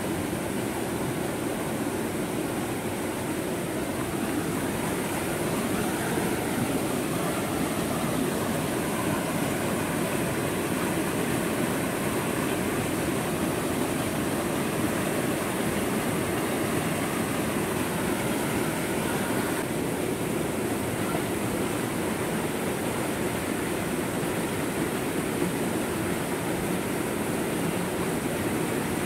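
Swollen forest stream rushing down small rocky cascades: a steady, unbroken noise of churning white water.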